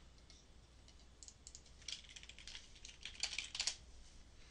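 Faint computer keyboard keystrokes in three short quick runs, the loudest near the end, as words are deleted from a document.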